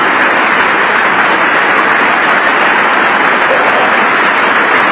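Hailstorm: hail and heavy rain coming down in a loud, steady downpour.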